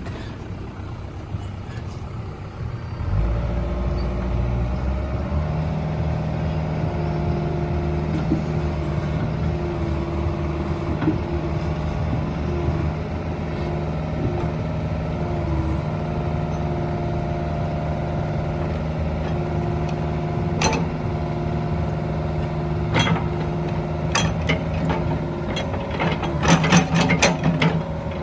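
Cat 305E mini excavator's C2.4 four-cylinder diesel picking up from idle about three seconds in, then running steadily while the machine is worked, with the pitch dipping slightly now and then under hydraulic load. Sharp metallic clanks come in toward the end and grow into a quick run of knocks.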